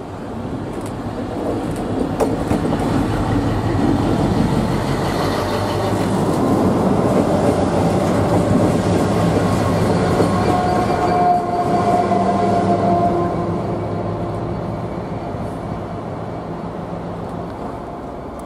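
DB Cargo Class 60 diesel locomotive's eight-cylinder Mirrlees engine passing at low speed, its engine note building as it approaches, loudest as it runs by, then fading as it draws away. A short high whine sounds about two-thirds of the way through.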